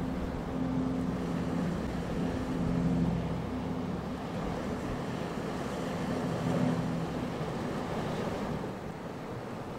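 Wind buffeting the microphone and choppy sea washing, with a motorboat engine's steady low hum underneath that fades out about three quarters of the way through.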